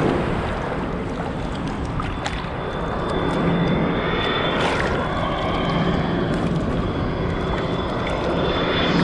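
Jet airliner coming in low on final approach, its engines a loud steady rush with a low hum and a high whine that joins about three seconds in.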